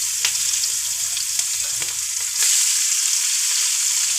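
Chopped garlic and onion sizzling in hot oil in a frying pan, with a few light knocks of stirring; the sizzle gets louder about two and a half seconds in.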